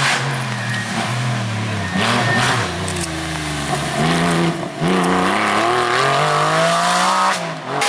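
Rally cars driven hard past the spectators, engines revving high. The pitch climbs through each gear and dips at every shift, falls once as a car slows for a bend, and climbs steadily for the last few seconds.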